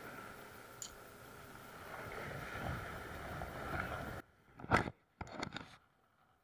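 Steady wind and sea noise on the microphone, with a short louder burst a little before the end; the sound twice drops out almost completely near the end.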